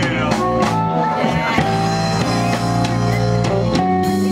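Live blues band playing: a hollow-body electric guitar, a drum kit and a harmonica, with held notes that bend in pitch over a steady bass line.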